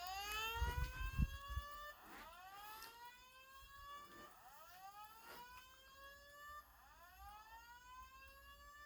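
Fire alarm speaker strobe sounding the slow-whoop evacuation tone of a Simplex 4100 voice-evacuation message: about four rising sweeps, each lasting roughly two seconds and cutting off at its top before the next begins. A few low thumps come about a second in.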